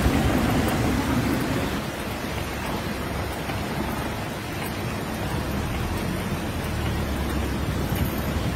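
Heavy rain pouring down, a steady rushing noise.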